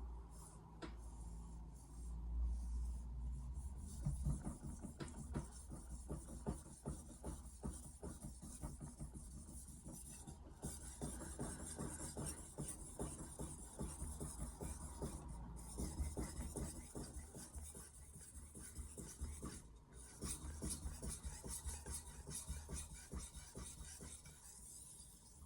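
Mercer 8-inch granton-edge knife blade stroked back and forth on a Shapton Kuromaku 2000-grit whetstone, a long run of quick rasping strokes of steel on stone.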